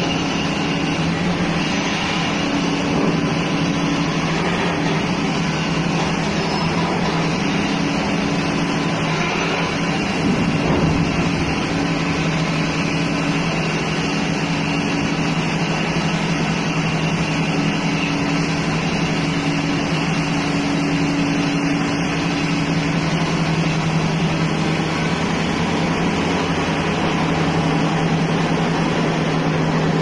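Tata Hitachi long-reach excavator's diesel engine running steadily while its boom is worked, a constant low drone with no change in pitch.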